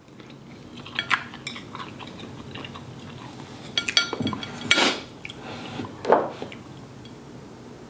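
An eating utensil clinking and scraping against a dish several times. There are scattered light clicks at first, then a cluster of clinks, and two louder scrapes about five and six seconds in.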